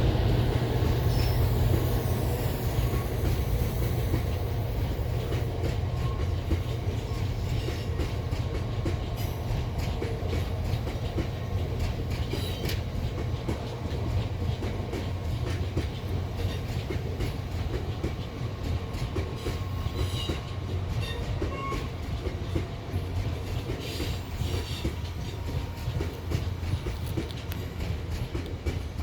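Freight train rolling past: a steady low rumble of wagons with wheel clatter over the rail joints, slowly getting quieter.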